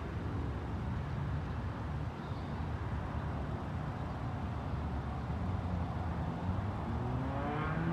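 Street traffic: a steady low rumble of cars at an intersection, with a vehicle's engine speeding up in a rising pitch near the end as it pulls away.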